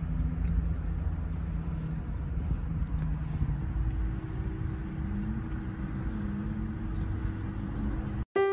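Steady low rumble inside a parked car's cabin with a faint even hum, as of the car idling; it cuts off suddenly near the end.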